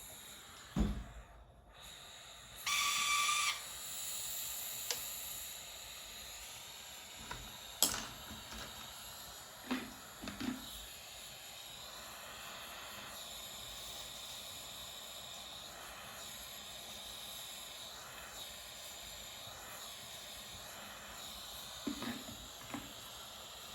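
Small soldering torch flame hissing steadily while silver is soldered. A brief whistle-like tone comes about three seconds in, and a few light clicks and knocks sound over the hiss.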